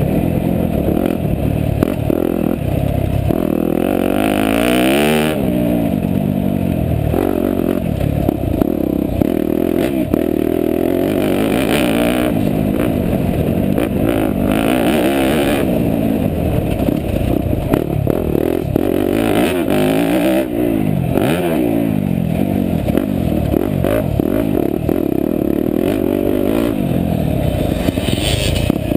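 2016 Yamaha YZ250F's four-stroke single-cylinder engine, ridden hard: it revs up and falls back over and over, the pitch climbing through each gear and dropping at shifts and corners. Bursts of rushing wind noise on the microphone come every few seconds.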